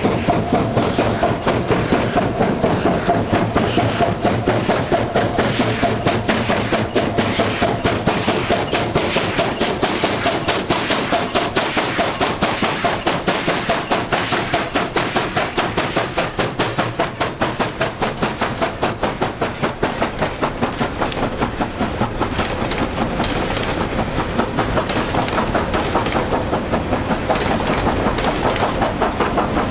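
A long train of loaded coal hopper wagons rolling past close by, their steel wheels clattering over the rail joints in a fast, even rhythm. A steady ringing note runs under the clatter through the first half.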